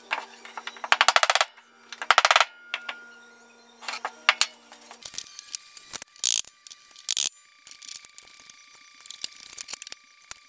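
Metal bearing housing being handled. There are two short bursts of rapid metallic clicking and rattling, then a few sharp clunks as heavy steel parts are set down on the workbench.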